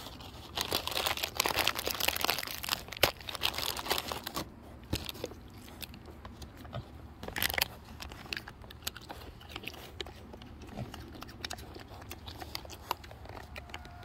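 Crinkling and crunching as baby pigs are hand-fed food rewards. It is densest in the first four seconds, with one sharper burst about seven and a half seconds in, then thins to scattered clicks.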